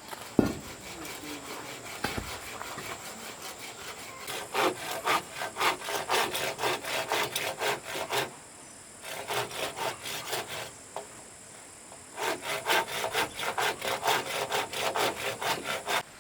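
Hand saw cutting through wood in quick back-and-forth strokes, in three bouts with short pauses between them. Two knocks come just before the sawing starts.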